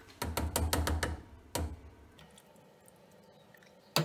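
A metal spoon knocking and scraping against a ceramic dish and the rim of a steel saucepan as butter is pushed off it into the milk: a quick run of small clicks and knocks in the first second, one more knock about a second and a half in, and another near the end.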